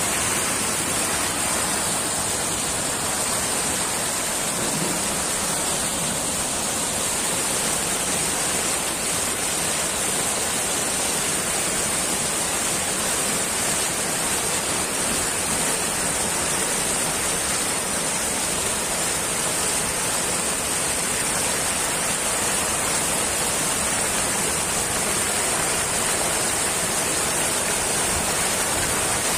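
Brown floodwater rushing across a submerged road and pouring over its edge in a steady, unbroken wash of water noise.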